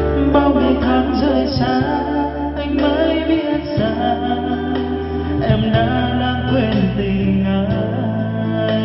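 A song with a singing voice over guitar and sustained bass notes, played through an MBA SA-8705 trolley karaoke speaker with a 15-inch woofer.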